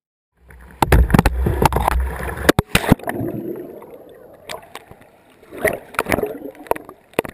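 Whitewater splashing and rushing over the kayak's camera, loud with a low rumble at first, then muffled underwater gurgling with scattered knocks and clicks as the kayak goes over and the camera is submerged.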